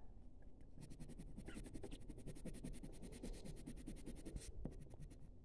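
Orange coloured pencil scratching on paper in quick back-and-forth strokes, about ten a second, shading in a small area. The strokes start about a second in and stop shortly before the end.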